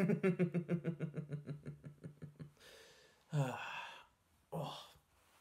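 A man's low, pulsing laugh, about eight beats a second, that fades out over about two and a half seconds, followed by two short breathy exhalations.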